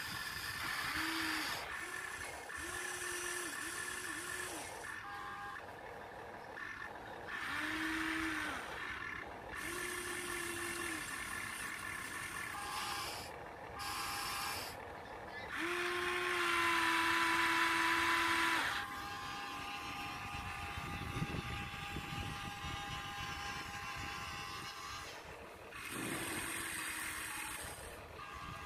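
Huina 1593 remote-control excavator's small electric motors and gearboxes whining in a series of short start-stop runs as the boom, arm and turret move. The longest and loudest run lasts a few seconds just past the middle.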